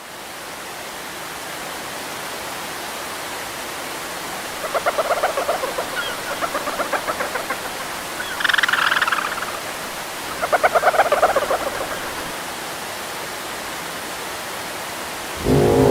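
Steady rush of a waterfall, with four bouts of rapid pulsing animal calls over it in the middle; the third bout is higher-pitched. The calls are creature sound effects.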